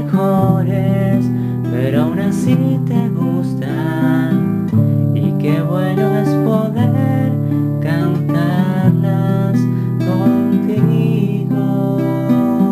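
Acoustic guitar music: plucked chords that change every second or two.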